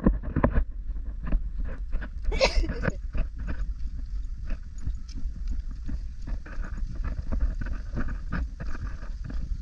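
Footsteps crunching and scuffing on a dry dirt and stone trail, with one louder scuff about two and a half seconds in, over a steady low rumble of wind on the microphone.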